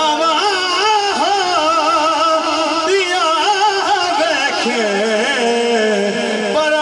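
A man singing a Punjabi naat (devotional kalam) into a microphone over a PA system, in long ornamented phrases with held, wavering notes. A new phrase begins about three seconds in.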